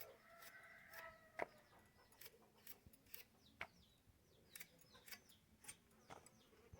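Faint chicken call, one drawn-out note lasting about a second at the start, over scattered light clicks and a few small high bird chirps.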